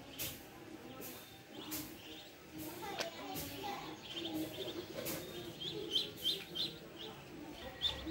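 A brood of Muscovy ducklings peeping in quick, high clusters of chirps, with several short scratchy noises mixed in.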